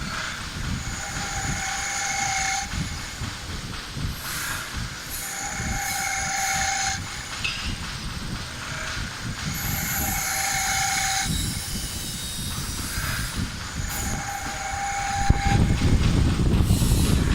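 Mini CNC wood lathe turning a wooden cup. A steady rumble runs underneath a whining tone that comes and goes about every three to four seconds, and the rumble grows louder near the end.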